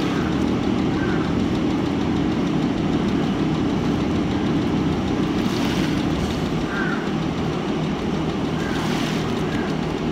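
Steady low drone of running machinery, like an engine, at an even level throughout. A few faint short high chirps sound over it.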